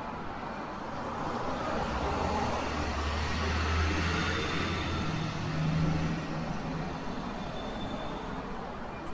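A road vehicle passing close by on a city street, its deep engine rumble swelling over a few seconds, peaking a little past halfway and then fading, over a steady wash of traffic noise.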